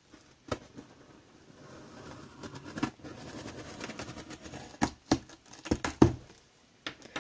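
A utility knife slitting packing tape along a cardboard box seam makes a scratchy rasp for a couple of seconds. It is followed by several sharp knocks and thuds of cardboard as the knife is set down and a box flap is pulled open, the loudest near the end.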